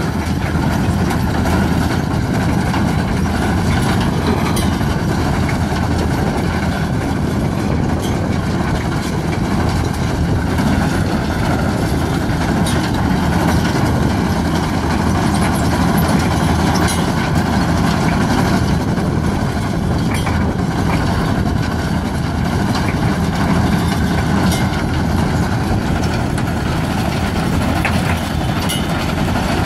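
Large farm tractor's diesel engine running steadily under load as it tows a stone-gathering implement over stony ground, with a rattle and clatter of stones in the machine.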